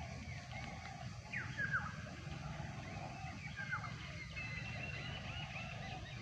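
Small birds chirping, with a few quick falling chirps about a second and a half in, over a steady low rumble.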